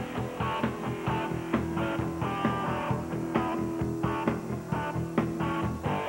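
Rock music with guitar over a steady beat; one note is held through most of the middle.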